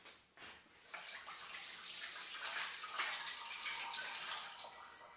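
Water running from a tap while hands are washed under it, coming on about a second in and easing off near the end.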